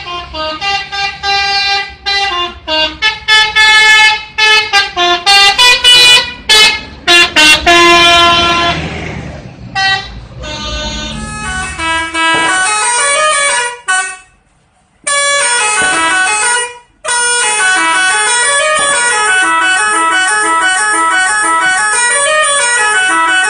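A bus's 'telolet' multi-tone musical horn sounds a fast string of short tooting notes at changing pitches, with the bus's engine rumbling underneath. After a short dropout about halfway through, a cleaner, unbroken run of melodic notes rising and falling in pitch takes over, with no engine rumble.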